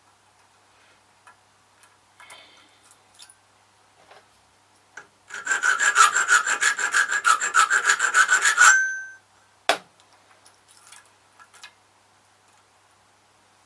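Hand file cutting into a key blank: a run of rapid, even strokes, about six a second, for about three and a half seconds, ending with a brief metallic ring. A sharp click follows about a second later, with small taps and handling noises before and after.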